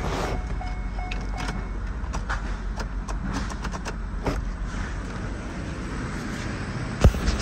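1998 Corvette's 5.7-litre LS1 V8 idling steadily. A dashboard warning chime dings repeatedly for the first second and a half, and a car door slams shut near the end.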